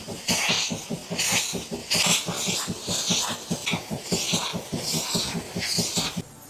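Handheld fabric cleaner with a hose working over plush toys: a fast, even pulsing of about seven beats a second, with repeated bursts of hiss as the head is drawn across the fabric.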